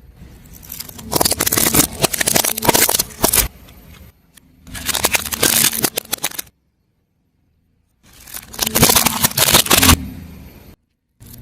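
Brittle objects crunching and crackling as a car tyre rolls over and crushes them, in three separate bursts of dense snapping, about two seconds each, with a stretch of dead silence between two of them.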